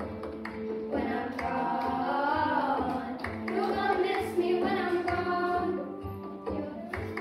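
Children singing a song over a recorded backing track with a steady beat.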